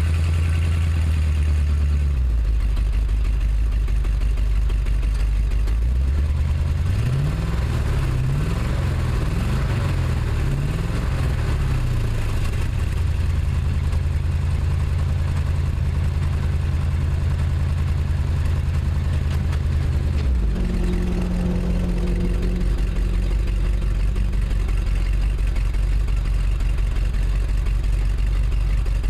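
1979 Chevy truck's 350 small-block V8 running with a persistent misfire: it idles, is blipped up and down several times, holds a raised speed for several seconds, then drops back to a steady lower speed about two-thirds of the way through.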